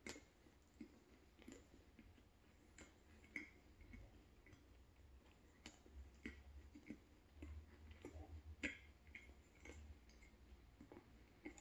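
Close-up chewing of a croissant: quiet, irregular small clicks and crackles from the mouth and the flaky pastry, a few a second.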